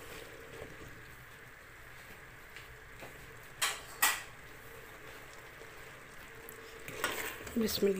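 Wooden spoon stirring thick, bubbling black chickpeas in an aluminium pressure cooker pot as the water cooks off, with a faint steady simmer and two sharp knocks of the spoon against the pot about three and a half seconds in.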